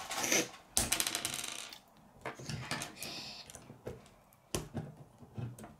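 Hard plastic K'nex pieces clicking and rattling as they are handled and snapped onto a model: a quick run of clicks about a second in, then scattered single clicks.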